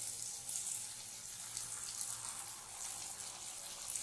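Jalebi batter deep-frying in hot oil and ghee in a wide pan: a steady sizzling hiss with small crackles as fresh batter is piped into the oil.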